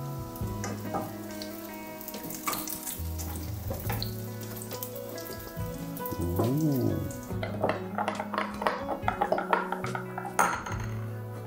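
Cottage cheese pancakes sizzling in oil in a frying pan, with a wooden spatula and fork knocking against the pan as they are turned. In the second half comes a quick run of clinks of metal utensils on dishes and glass, over background music.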